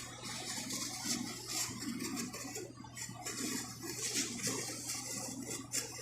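Peel ply being smoothed by hand over wet fibreglass laminate: soft, irregular rubbing and wet squishing, over a steady low hum.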